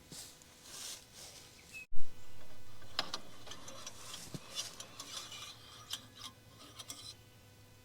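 Hand work on the bulldozer's hydraulic lines and fittings: rubbing and scraping with a scatter of small metallic clicks and knocks, and one sharp knock about two seconds in.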